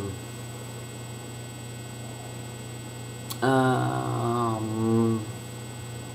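A person's wordless, closed-mouth 'hmm' while thinking, about three and a half seconds in and lasting under two seconds, with a sharp click just before it. A steady electrical mains hum runs underneath.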